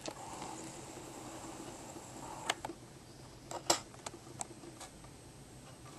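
Handling clicks from a Canon PowerShot compact digital camera held in the hands: a few sharp clicks, the loudest about three and a half seconds in, over a low steady hum.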